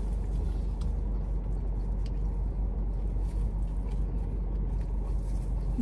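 Steady low hum of a car heard from inside the cabin while it stands still, with a few faint soft clicks over it.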